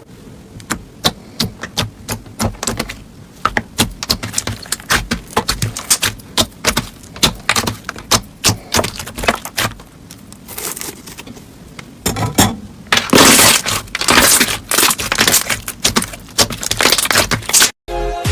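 Crunchy slime being squeezed and pressed by hand, giving a rapid run of sharp crackles and clicks, with a thicker, noisier stretch of crunching in the last few seconds before it cuts off suddenly.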